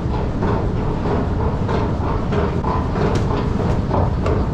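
Steady, loud low rumble of an underground rail station's machinery, with the escalators running and faint irregular clicks over it.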